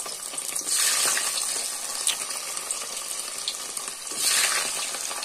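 Paneer cubes frying in hot mustard oil: a steady sizzle that swells louder about a second in and again near the end.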